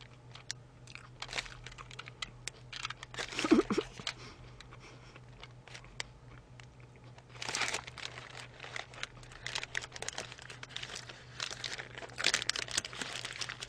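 Paper burger wrapper crinkling in the hands in scattered bursts while a chicken burger is eaten, with a brief murmured voice sound about three and a half seconds in.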